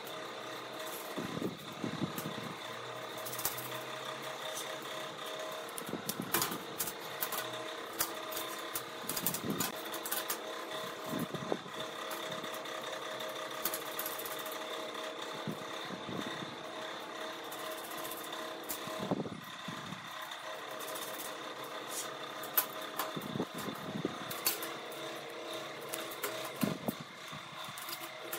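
Steel flat bars of a bolted scissor linkage clinking and knocking as they are shifted and handled on a metal workbench, with many scattered short clicks, over a steady mechanical hum.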